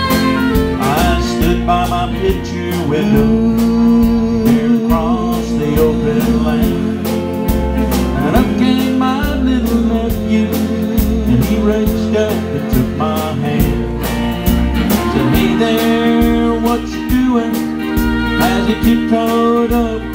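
Country band playing an instrumental break: fiddle carrying a sliding melody over strummed acoustic guitar and drums keeping a steady beat.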